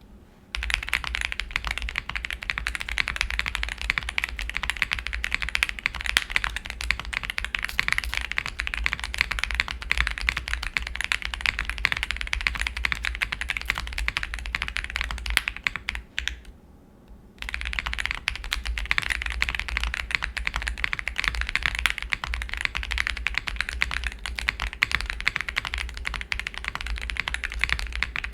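Mechanical keyboard with Boba U4T tactile switches and Mr. Suit keycaps, typed on fast and continuously, with a short pause about sixteen seconds in.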